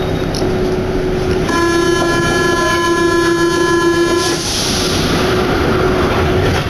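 Rubber-tyred MP89CA metro train running, heard from inside the car, with a loud, steady, rich tone for about three seconds starting about a second and a half in, then a rush of running noise.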